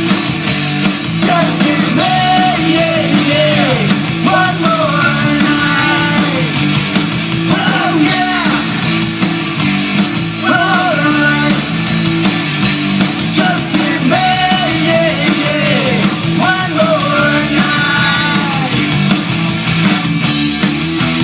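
Rock band playing a loud, driving song with full band backing, over which a lead melody comes back in short phrases of bending, sliding notes.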